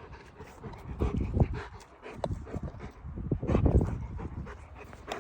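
Golden retriever panting and breathing hard in uneven bursts, winded from fetching.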